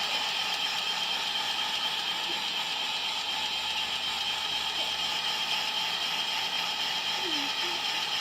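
Heat gun blowing a steady rush of hot air, warming the phone's back glass so the adhesive turns stickier and seals.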